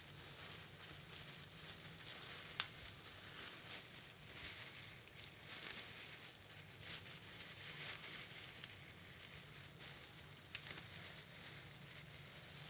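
Faint rustling and crinkling of a fresh banana leaf and plastic gloves as the leaf is folded shut around a filling of glutinous rice, with a sharp click about two and a half seconds in and a faint low hum underneath.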